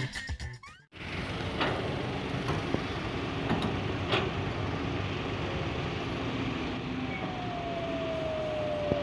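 Kobelco hydraulic excavator running steadily at work while its bucket digs into soil, with a few sharp clicks and knocks in the first half.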